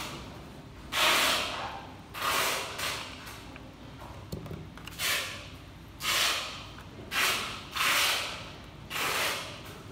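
A person's breath close to the microphone: short hissy nasal exhalations, about one a second and irregularly spaced.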